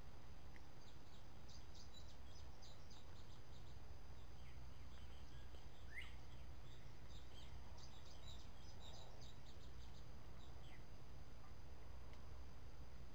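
Woodland ambience over a steady low rumble: small birds chirping in two quick, high clusters, with one short rising call in between.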